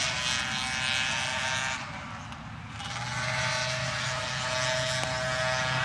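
A steady engine-like mechanical hum with a hiss over it. It dips briefly about two seconds in, then a deeper steady tone joins.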